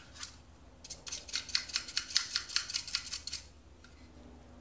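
Plastic toothbrush scrubbing blue battery-leak corrosion off the battery contacts of a motion sensor: a quick run of short scratchy strokes, about six or seven a second, starting about a second in and stopping near the three-and-a-half-second mark.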